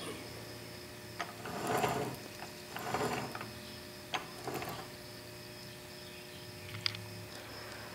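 Cast-iron Ford Model A transmission case being turned by hand on its stand: a few soft scrapes and light metallic clicks, mostly in the first half.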